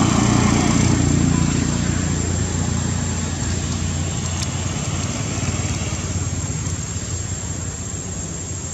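A vehicle engine running steadily with a low hum, loudest at the start and fading gradually as it moves away.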